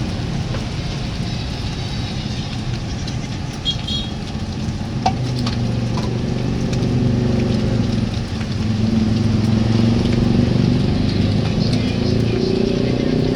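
Steady street noise with motor traffic; a low engine hum swells in the second half, with a couple of sharp clicks about five seconds in.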